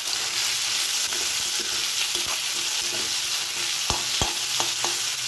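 Sliced onion, tomato, ginger, garlic and green chillies sizzling as they fry in hot oil in a kadai, stirred with a spatula, with a couple of sharp knocks of the spatula against the pan about four seconds in.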